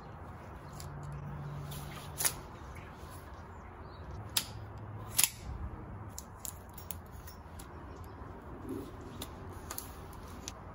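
Hands-on bicycle cable work at the handlebars: scattered sharp clicks and snaps of brake and shifter cables, housing and hand tools being handled, with a few louder snips from cable cutters about two, four and five seconds in.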